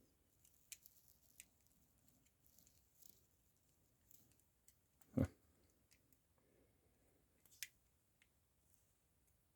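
Faint small metal clicks of a paper clip being worked in the keyhole of rigid handcuffs, with one louder knock about five seconds in.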